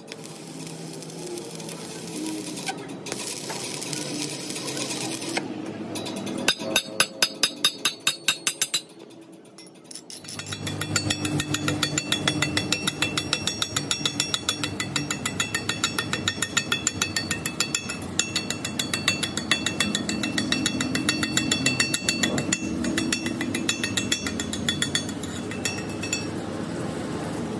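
Steel chipping hammer tapping along a fresh weld bead on a steel truck front axle beam, knocking off welding slag with quick, regular metallic taps. A short run of louder blows comes about seven seconds in, and from about ten seconds in the tapping runs steadily at about four strikes a second.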